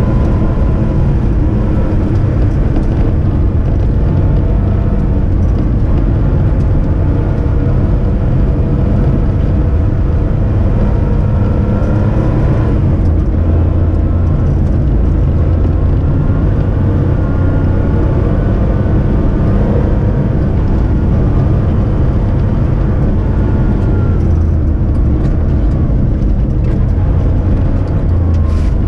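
Porsche 911's flat-six engine running under load as the car is driven around an ice track, its note rising and falling again and again with throttle and gear changes.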